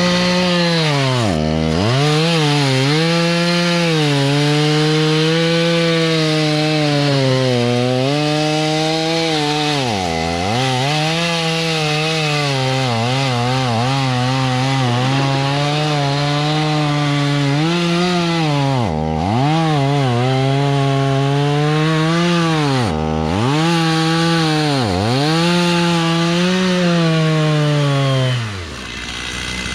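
Woodland Mills WG24 PTO stump grinder cutting a stump behind a tractor: a loud, steady machine note whose pitch sags sharply and then recovers several times as the cutter wheel bites and loads down the drive. The note falls away near the end.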